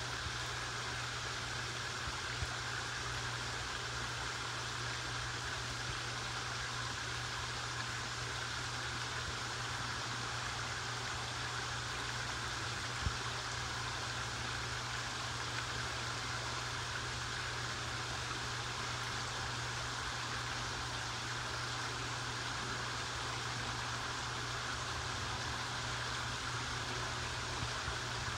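Steady rushing of water being aerated or fed into a koi holding tub, with a low steady hum underneath.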